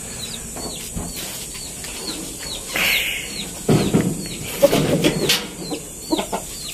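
Poultry pen sounds: short, high, falling bird chirps repeat throughout. Between about three and a half and five seconds in there is a louder stretch of rough rustling with low clucking and a few sharp knocks.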